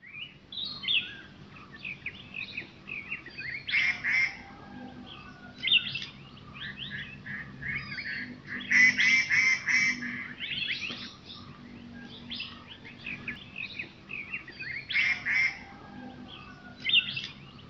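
Birds chirping and calling: a busy mix of short, varied chirps and warbled phrases, with louder clusters of calls every few seconds.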